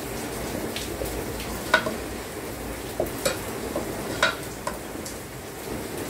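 A metal ladle stirring seekh kebabs through sizzling masala in a metal pot, scraping along the bottom and clacking against the pot about five times, loudest a little under two seconds in.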